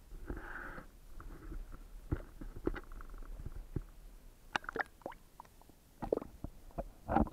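Muffled, irregular knocks and bumps with some water sloshing, heard through an action camera's waterproof housing as it goes into a shallow stream.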